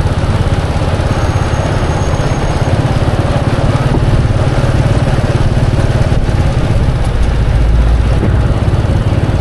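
Motorbike engines and street traffic: a steady low rumble that swells briefly about eight seconds in.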